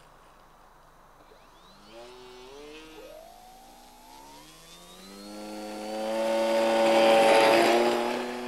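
Electric motor and propeller of a Multiplex Mentor RC model plane spooling up for takeoff: a whine that climbs in pitch as the throttle opens from about two seconds in. It grows loud as the plane rolls past on its takeoff run, loudest about seven seconds in, and drops slightly in pitch as it goes by.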